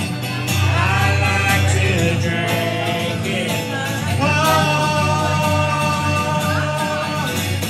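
Acoustic guitar strummed under a man and a woman singing together, holding long drawn-out notes, the closing notes of a country song.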